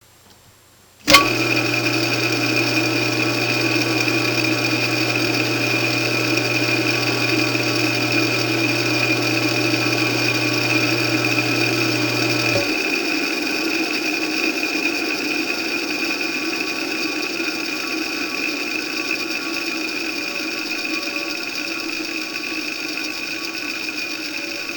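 A 1/2 HP, 1720 RPM four-pole capacitor-start single-phase induction motor switched on about a second in with a sharp start, then running steadily at speed with a steady whine. About halfway through, its low electrical hum stops suddenly and the running sound begins to fade slowly as the motor, switched off, coasts down.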